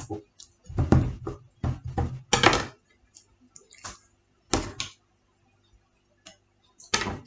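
Kitchen knife cutting oranges and knocking against a plastic cutting board on a table: a series of separate knocks and thuds, thickest in the first three seconds, then a few scattered ones.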